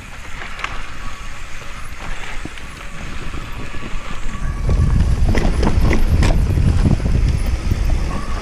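Specialized Kenevo mountain bike descending a rough dirt singletrack: tyres rumbling over dirt and roots while the bike rattles and clatters. The rumble grows much louder about halfway through, with a run of sharp knocks from the bike hitting bumps.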